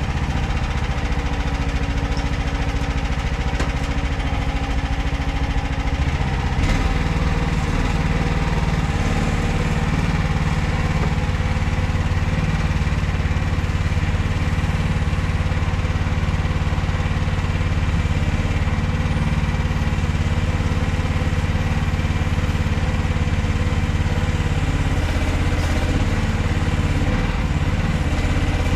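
Chinese mini excavator's engine running steadily under work, its note shifting slightly about six and a half seconds in.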